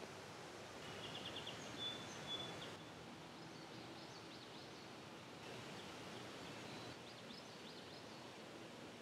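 Faint woodland ambience with distant birdsong: a quick trill of high notes about a second in, then scattered faint high chirps.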